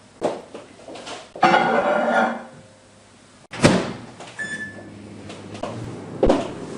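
Kitchen handling sounds: a few light knocks and a rough scraping sound lasting about a second, then a sharp thunk like an appliance door shutting, followed just after by a short electronic beep.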